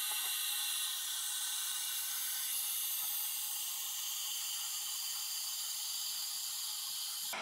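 Toilet cistern fill valve hissing steadily as water runs in to refill the tank after a half flush, then cutting off suddenly near the end as the valve shuts.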